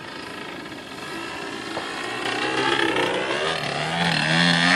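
Gas engine of a giant-scale radio-controlled aerobatic airplane in flight, its pitch wavering up and down and its sound growing steadily louder as it comes closer.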